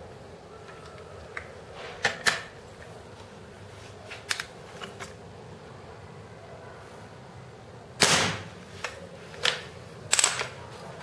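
An air rifle fires a single shot about eight seconds in: a sharp crack with a brief tail, the loudest sound here. Smaller metallic clicks and knocks come before and after it as the gun is handled and loaded.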